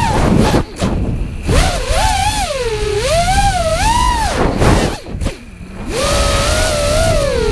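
FPV quadcopter's brushless motors whining, the pitch sliding up and down with the throttle. The whine drops away briefly about half a second in and again for about a second around five seconds, where the throttle is chopped, then comes back up as the quad climbs.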